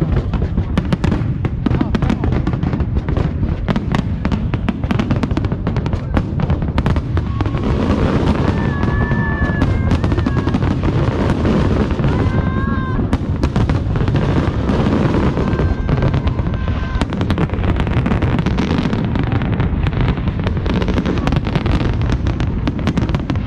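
Aerial fireworks display heard close up: a dense, continuous run of cracks and bangs.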